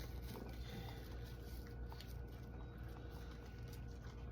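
Faint, scattered clicks and rustles of hands handling small objects, over a steady low hum.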